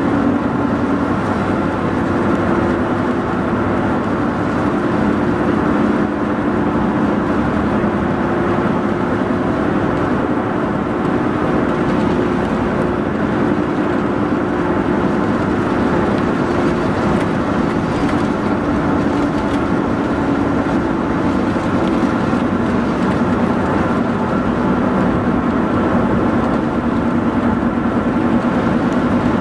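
Steady road and engine noise heard inside a car cruising at highway speed on wet pavement: a constant drone with tyre hiss, unchanging throughout.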